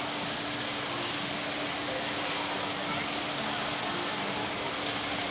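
Steady outdoor background noise: an even hiss with a steady low hum running under it.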